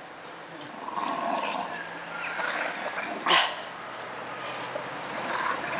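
A dog at play, giving one short bark about three seconds in.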